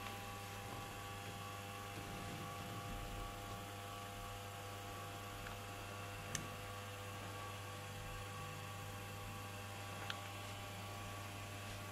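Steady electrical mains hum over a low hiss, with two small clicks, one about six seconds in and another about ten seconds in.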